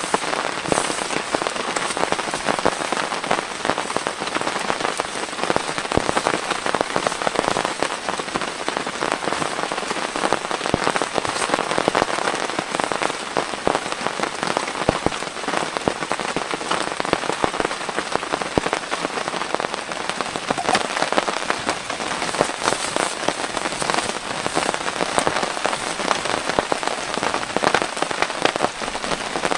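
Steady heavy rain, a dense, even patter of drops that keeps on without let-up.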